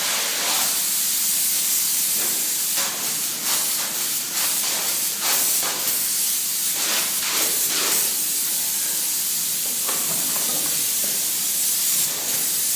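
Spray polyurethane foam gun hissing as it sprays insulating foam, the hiss swelling and dipping briefly many times.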